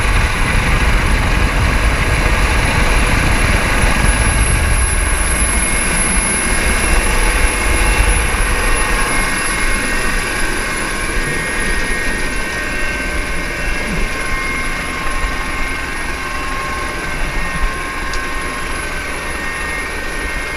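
Helicopter rotor and turbine engine running steadily while hovering, heard from inside the cabin at the open side door, with a thin high whine over a deep rumble. The rumble eases slightly about halfway through.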